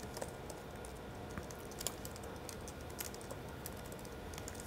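Faint, irregular typing on a computer keyboard: scattered individual keystrokes.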